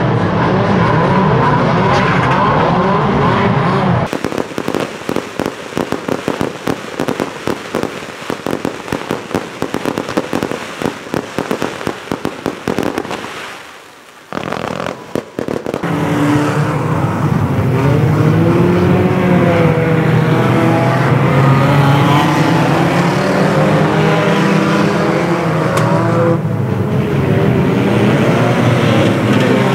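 Several banger racing cars' engines revving. About four seconds in they give way to a dense crackle of fireworks, which fades out with a few last pops. The bangers' engines then rev again through the rest.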